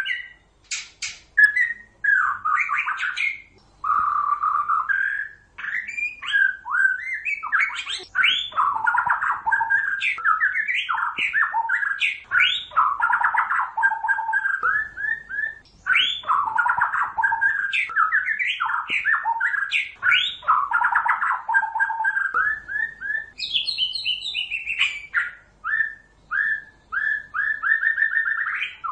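White-rumped shama calls used as a trapping lure: near-continuous fast runs of short chirps and harsher notes, with a few brief pauses and a higher-pitched stretch a little past the middle.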